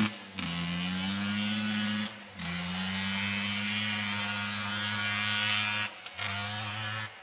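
Yamaha Blaster ATV's two-stroke single-cylinder engine running at fairly steady revs, breaking off briefly three times, then dropping away and fading right at the end.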